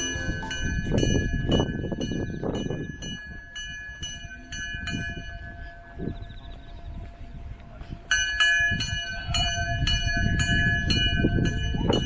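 A bell-like warning signal ringing in a rapid, even rhythm of about three strikes a second, over a low rumble. It fades in the middle and comes back louder about eight seconds in.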